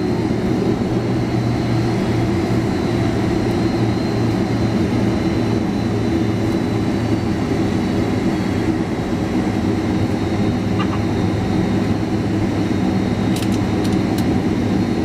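Boeing 767-300 jet engines at low taxi power, heard inside the passenger cabin: a steady low hum with a few held tones and a faint high whine, with a few faint ticks near the end.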